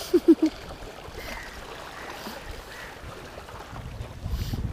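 Small sea waves washing against a rocky shoreline, a steady wash of water noise. Three quick low voice-like sounds come right at the start, and a low rumble builds near the end.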